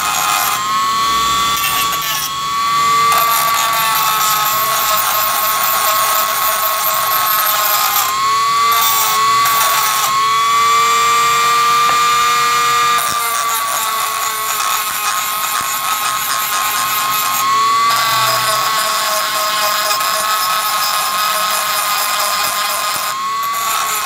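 Falcon handheld rotary tool running at high speed with a small abrasive grinding stone, grinding a metal multitool adapter piece. A steady high whine that dips in pitch briefly several times and recovers as the stone bears on the metal.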